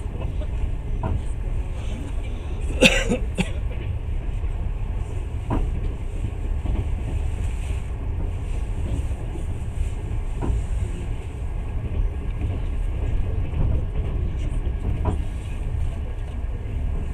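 Passenger train carriage in motion: a steady low rumble of the running train heard from inside the car, with a sharp double click about three seconds in and fainter single clicks now and then.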